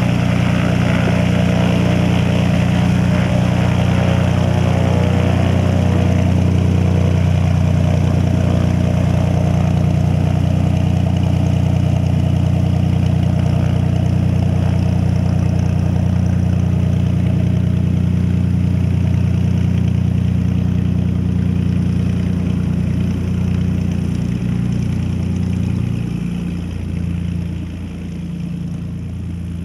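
Light aircraft's single piston engine and propeller running at steady taxi power on a Cessna Stationair, a steady low engine note that grows fainter over the last several seconds as the aircraft moves away.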